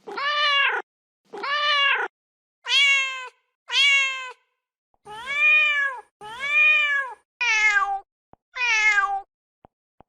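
Mother domestic cat meowing eight times in a steady series, each call under a second long and arching up then down in pitch, the last two sliding downward. These are her calls for her kittens.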